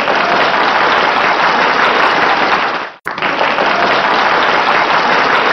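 Steady applause from a crowd clapping, cutting out for an instant about three seconds in and then starting again.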